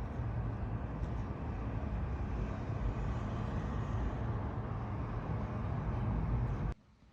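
Steady low rumble of road traffic and a running vehicle, cutting off abruptly near the end.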